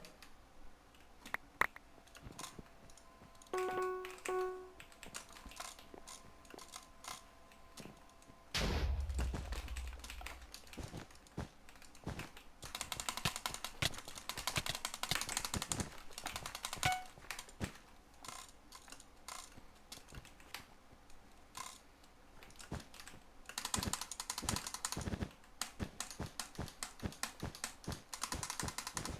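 Computer keyboard keys clicking, with scattered single key presses and several runs of fast typing. A brief pitched electronic tone sounds about four seconds in, and a low thump comes about nine seconds in.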